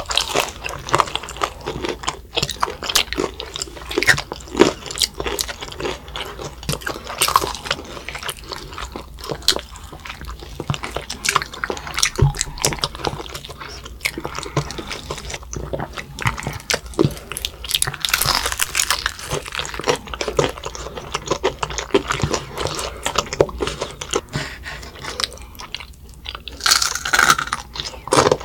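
Crunching and chewing of crispy fried chicken drumsticks as several children bite and eat, with wet mouth sounds between the crackly bites.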